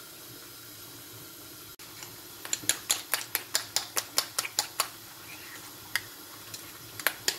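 A spoon clicking quickly against a small bowl while stirring thick berbere paste (awaze), about five taps a second. A run of taps starts a couple of seconds in and stops before the five-second mark, and a second run starts near the end.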